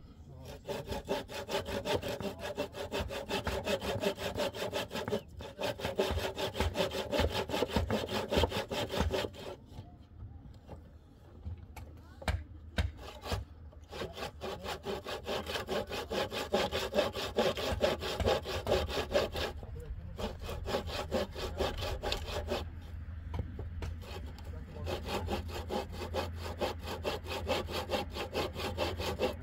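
Hand saw cutting through wood in quick, rhythmic back-and-forth strokes, in several bouts with short pauses between them.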